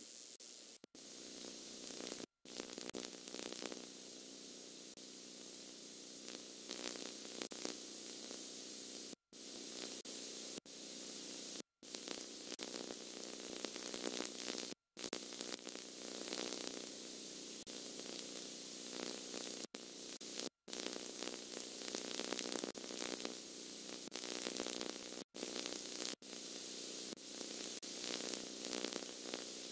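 Steady static hiss with a faint low hum from an otherwise empty soundtrack, cut by brief dropouts to silence several times.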